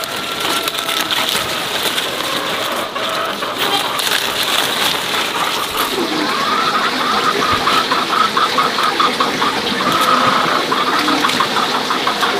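Chickens clucking in a rapid run of short notes from about halfway through, over a steady rushing background. Soft rustling and snapping of leafy greens being picked comes through alongside.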